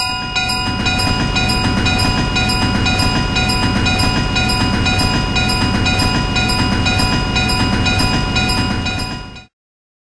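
Train passing a railroad crossing: a low rumble and clatter of wheels under the crossing bell, which keeps ringing with steady, regular strokes. Everything cuts off suddenly near the end.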